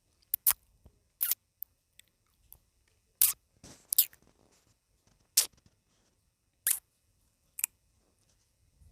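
Close-miked eating sounds of a person eating mie ayam (chicken noodles): about eight sharp, wet mouth clicks and smacks spread unevenly, with a short hissing stretch a little before the middle.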